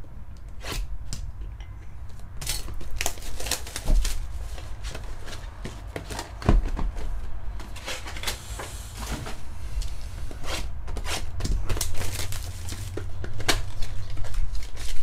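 Trading-card boxes being unpacked by hand: cardboard taps, knocks and a couple of thuds as mini boxes are set down on the table, with a stretch of plastic wrap rustling and tearing, over a steady low hum.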